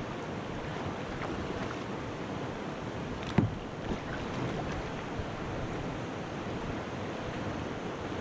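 Steady rush of river rapids as the kayak drifts toward the whitewater on high, muddy water. A sharp knock about three and a half seconds in, with a smaller one just after.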